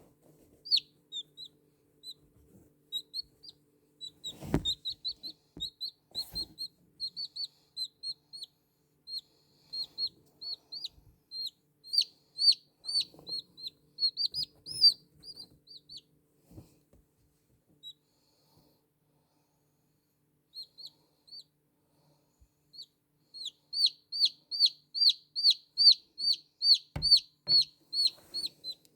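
A newly hatched chick peeping: a run of short, high, downward-sliding peeps, a pause of several seconds, then a fast, loud series of about three peeps a second near the end. A couple of sharp knocks sound in between.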